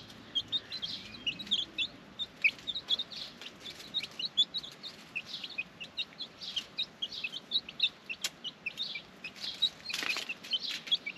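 A group of ten-day-old chicks peeping: many short, high peeps in quick, irregular succession as they feed. A brief burst of noise comes near the end.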